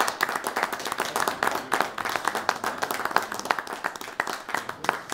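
A small audience applauding: many hands clapping in a quick, dense patter.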